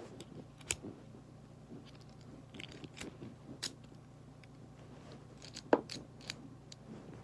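Scattered light clicks and taps of small parts and packaging being handled while unboxing a miniature model 1911 pistol kit, with one sharper knock about six seconds in.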